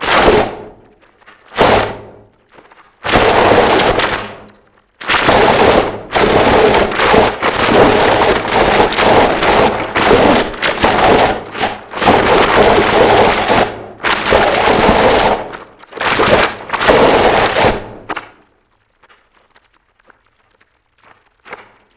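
Harsh noise music: walls of loud, distorted noise that cut in and out abruptly. Short bursts come at the start and about 1.5 s in, then a longer block. From about 5 s a near-continuous wall runs with brief dropouts, stops abruptly about 18 s in, and leaves only faint crackle.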